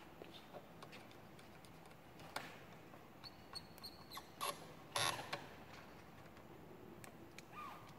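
Faint small clicks and ticks of wires being handled and fitted into the terminal block of a Riello diesel burner's control unit, with a brief thin squeak about three seconds in and a sharper cluster of clicks about five seconds in.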